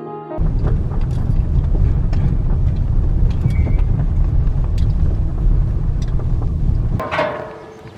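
Kubota DC-70 Plus rice combine harvester running, a loud steady low rumble with scattered clicks that cuts off sharply about seven seconds in, followed by a brief higher sound that falls in pitch.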